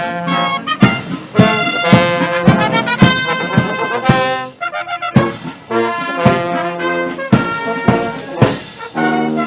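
Brass fanfare of trumpets and trombones playing held chords and short phrases, punctuated by sharp percussion hits about twice a second, with a short break about halfway through.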